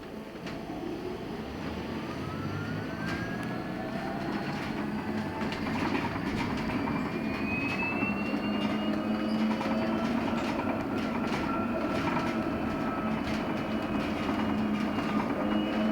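LiAZ-6274 electric bus's traction motor whining as the bus pulls away from a standstill, several tones rising in pitch while the noise swells, then levelling off at cruising speed about halfway through. Road rumble and scattered knocks from the cabin run underneath.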